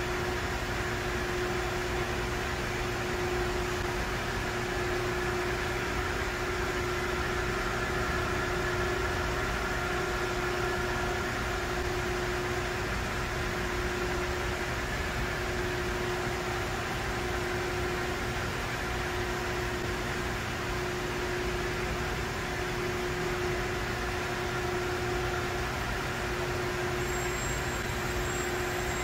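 Grand Rapids 570 surface grinder running with a steady motor hum: one strong constant mid-pitched tone with fainter higher tones above it, unchanging throughout.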